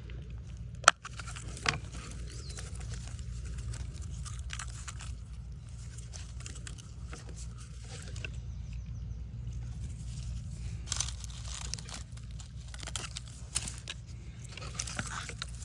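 Handling noise as copper desoldering braid is wrapped around a cut coaxial cable: scattered crinkles and small clicks, with one sharp click about a second in, over a steady low hum.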